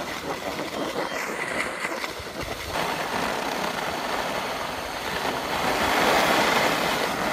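Steady rushing of a board sliding fast over groomed snow, mixed with wind on the microphone of a camera moving downhill. It grows louder about three seconds in.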